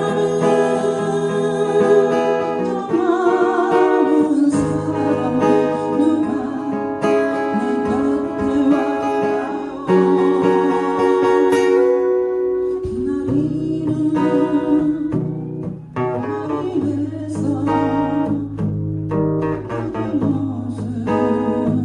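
Acoustic guitar played in a slow-rock pattern with palm-muted strums and bass-note runs, with a voice singing a ballad over it.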